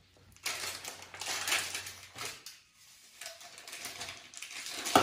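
A plastic packet crinkling and rustling as it is torn open and handled, mostly in the first two seconds, then a few soft clicks.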